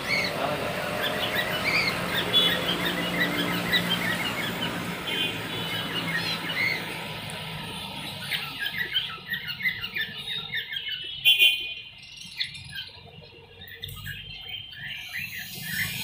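A cageful of zebra finches calling: a dense, busy chatter of short high chirps and nasal honks, with one louder, sharper sound about eleven seconds in.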